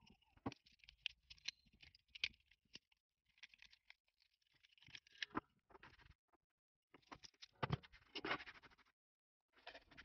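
Small plastic snaps and scratching as flush cutters clip leftover support material off a 3D-printed plastic housing, in irregular flurries of clicks. In the second half, a longer scraping rustle of a hand sweeping the plastic scraps across a cutting mat.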